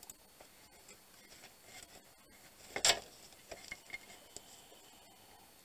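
Gloved hands handling and fitting a circuit board inside an inverter: faint rubbing and scattered small clicks, with one sharper, louder click just before the middle.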